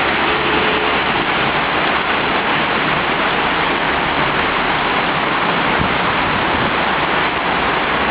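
Rain falling steadily and hard, a dense, even hiss with no let-up.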